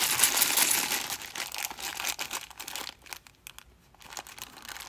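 Plastic bank coin bag crinkling as it is twisted and torn open by hand, with a brief lull about three seconds in.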